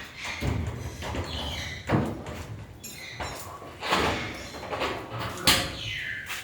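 Several sharp knocks and clatters, with birds calling in between.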